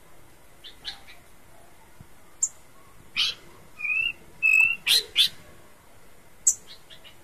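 Horsfield's babbler calling: a run of short, sharp chirps and clicks with two brief whistled notes in the middle, loudest about five seconds in.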